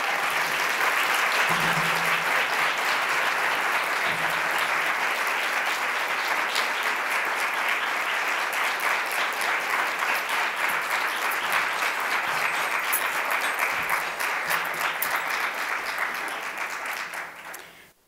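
A large audience applauding, many hands clapping in a steady, dense patter that dies away near the end.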